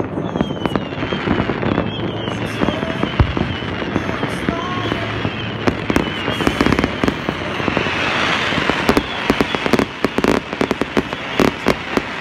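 Fireworks going off all over the city: a constant run of bangs and pops near and far, with several falling whistles from whistling rockets. About eight seconds in there is a hissing crackle, and near the end a fast string of firecracker bangs.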